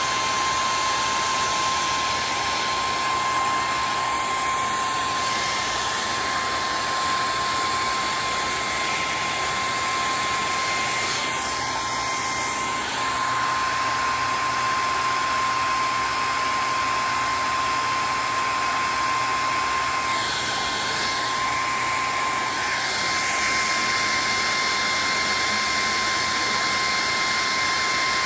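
Heat gun running steadily: a constant rush of fan air with a steady high whine.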